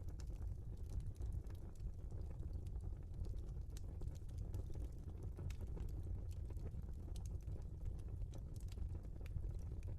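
Wood fire burning in a fireplace: logs crackling and popping with scattered small clicks over a steady low rumble of flames.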